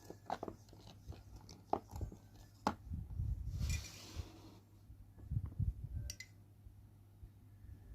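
Slime being kneaded and squeezed by hand: a string of wet clicks and pops, a longer squelching hiss about three and a half seconds in, and soft low thuds, over a faint steady hum.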